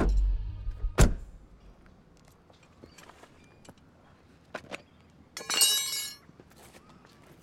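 A car's boot lid slammed shut with one heavy thump about a second in, a few soft footsteps on the road, then a steel car jack and wheel brace dropped onto asphalt, clattering and ringing briefly near the end.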